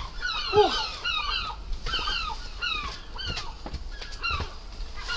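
Many birds chirping in short, quick, overlapping notes several times a second, with one lower call just over half a second in and a few light knocks.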